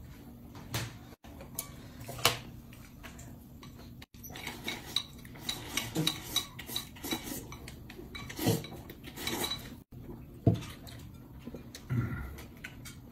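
Chopsticks clinking and scraping against a porcelain bowl as someone eats noodles, with scattered small clicks and a few duller knocks of the bowl.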